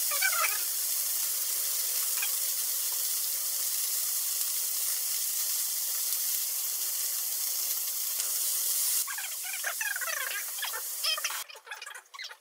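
Meat-wrapped Brussels sprouts sizzling in oil in a frying pan, a steady sizzle that turns rougher and more uneven about three-quarters of the way through. There are a few sharp clicks near the end.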